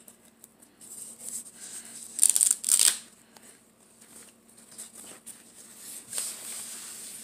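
Foam packaging sleeve rustling and crinkling as it is handled and pulled off a boxed digital scale, with two short, louder crackles about two and a half seconds in.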